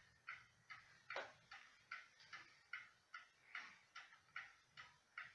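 Ansonia Trieste mantel clock ticking faintly and evenly, about two and a half ticks a second, with a brief downward-sliding sound about a second in.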